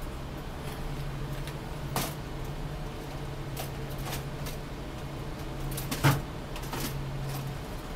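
Small clicks and knocks of hands working the electrode on a thermocouple welder, the loudest knock about six seconds in and another about two seconds in, over a steady low hum.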